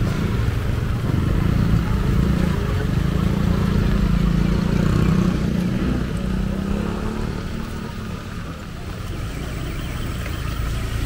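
Street traffic in light rain: motorcycle and jeepney engines running close by with a low rumble, easing off briefly past the middle. A motorcycle-sidecar tricycle's engine is close near the end, over a faint hiss from the wet road.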